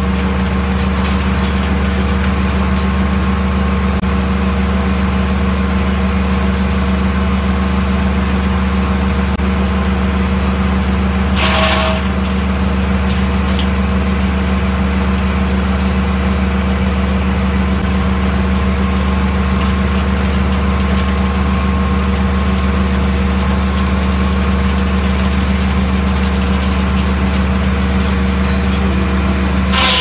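The engine of a Foley Belsaw M-14 circle sawmill runs steadily without load, keeping the saw turning between cuts, with an even drone. A single sharp clatter comes about a dozen seconds in.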